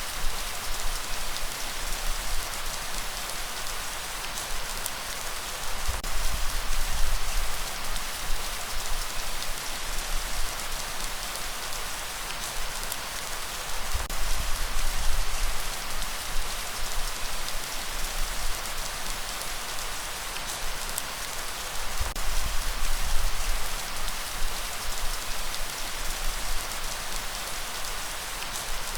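Light rain falling steadily, with a low rumble that swells and fades every several seconds.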